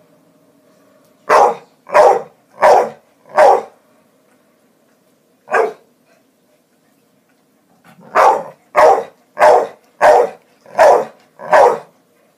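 Pit bull–type dog barking: four barks in quick succession, a single bark about two seconds later, then a steady run of six more.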